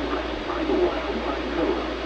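A voice speaking through a radio receiver over steady hiss and a low hum, the words unclear.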